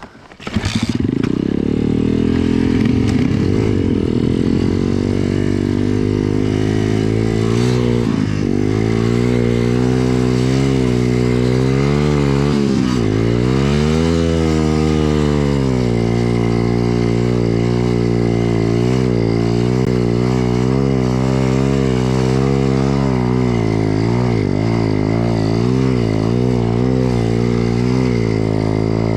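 BSE pit bike engine that comes up loud just after the start, then runs on under changing throttle while riding through deep snow, its pitch rising and falling with the revs, including a deep dip and climb about halfway through.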